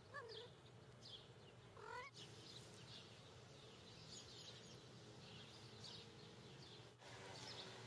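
Near silence outdoors, with faint birds chirping and one short call about two seconds in.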